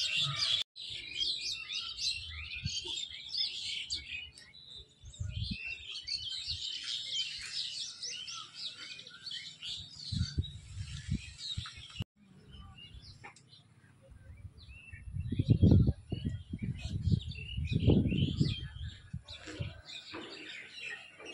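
A chorus of many small birds chirping and twittering over one another. Low rumbles and thuds come at intervals and are loudest for a few seconds past the middle.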